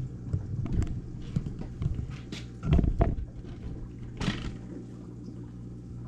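Irregular knocks and thumps from the camera being handled and moved, loudest about three seconds in, over a steady low hum from the running aquarium equipment.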